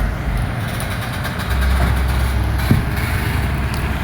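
Excavator diesel engine running with a low rumble that grows louder about a second and a half in, and a single knock a little after that.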